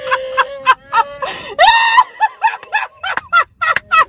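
A woman's high-pitched, helpless laughter in quick gasping bursts, about four a second, mixed with the growl of an electronic Chewbacca mask that sounds whenever her mouth moves.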